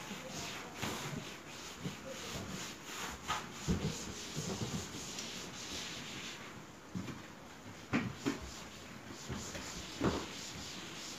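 Cloth wiping and rubbing over wooden wall panelling and a door frame, a steady scratchy scrubbing broken by a few sharp knocks, the loudest about four, eight and ten seconds in.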